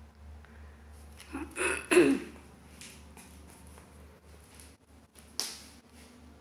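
A person's brief low vocal sound about two seconds in, falling in pitch, with a sharp click near the end and faint taps and handling noise around it.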